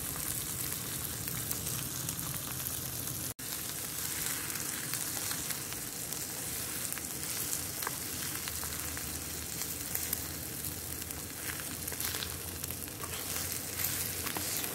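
Eggs frying in butter in a pan, with a steady sizzling crackle.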